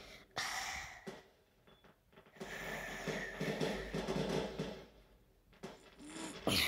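Soft rustling and rubbing of plush toys and fabric as they are handled close to the microphone, in a few short spells.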